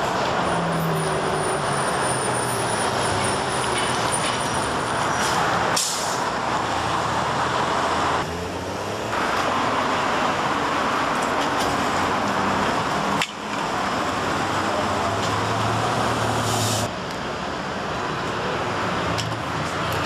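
Street traffic: cars driving past, a steady wash of tyre and engine noise. The sound changes abruptly several times.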